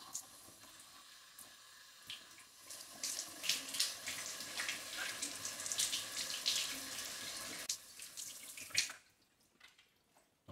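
Water running from a tap into a sink, the flow getting heavier and splashier about three seconds in, then the tap is shut off near the end.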